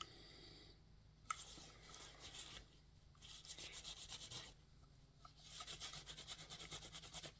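Faint rubbing and scrubbing on a plastic action figure's legs, in two spells of quick back-and-forth strokes, with a small click about a second in.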